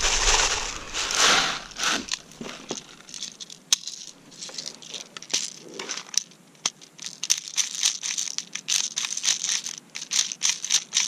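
Plastic airsoft BBs poured from a bottle into a speed loader with a rattling hiss, then the speed loader pumped into an airsoft Sten magazine, pushing BBs in with a run of sharp plastic clicks that comes faster and denser in the second half.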